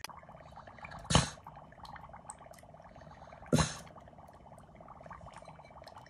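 Dry ice fizzing and bubbling steadily in a bowl of water, with two short loud snorts about two and a half seconds apart from a small white dog sniffing at the fog.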